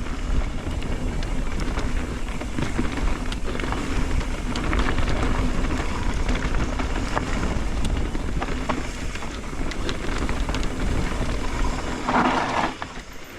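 Mountain bike rolling down a dirt trail: wind buffeting the helmet-camera microphone over tyre rumble, with scattered clicks and rattles from the bike. A short burst of scraping noise near the end as the bike is brought to a stop, after which it goes much quieter.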